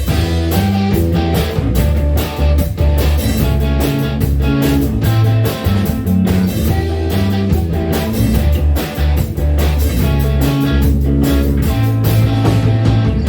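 Live rock band playing an instrumental break with no singing: guitar over a steady drum beat and low, moving bass notes.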